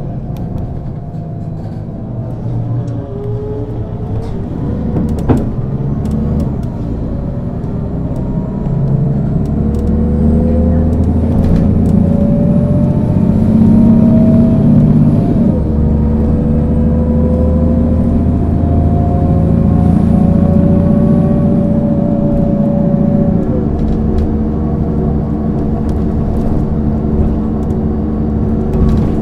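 Mercedes-Benz O 530 G Citaro articulated bus pulling away and accelerating, its engine and drivetrain tone rising steadily and then dropping at a ZF gearbox upshift about halfway through, rising again and dropping at a second upshift later on. A sharp click about five seconds in.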